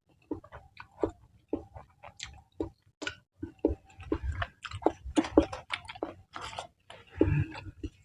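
Chewing a mouthful of saucy spicy noodles (mie nyemek): irregular wet mouth smacks and clicks, a few per second.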